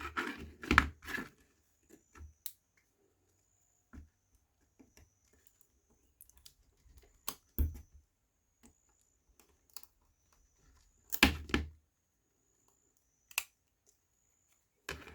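Laser-cut wooden pieces clicking and knocking as they are handled and set down: scattered light taps, with louder clacks about seven and a half and eleven seconds in.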